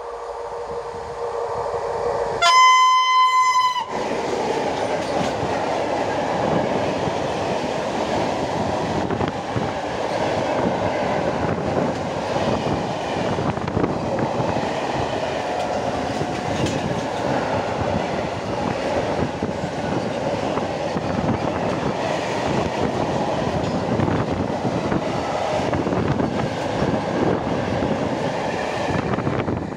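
M62BF diesel freight locomotive sounding one short, high horn note about two and a half seconds in as it approaches. Its long train of open coal wagons then clatters and rumbles steadily past on the rails, dying away just before the end.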